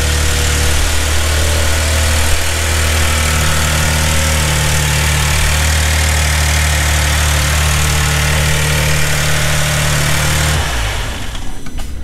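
Maserati Ghibli's 3.0-litre V6 engine idling steadily with an even hum, freshly restarted after a timing chain replacement and running smoothly with its earlier misfire gone. Near the end the hiss over the hum drops away and it sounds quieter.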